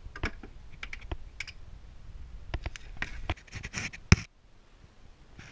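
Plastic wheel-well fender liner being pried off: a string of sharp clicks and short scrapes as its plastic retaining clips are worked loose, with the loudest click about four seconds in.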